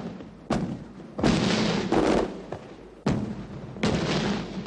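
Fireworks bursting: four sharp bangs about a second apart, with a weaker one between them, each trailing off into a fading hiss.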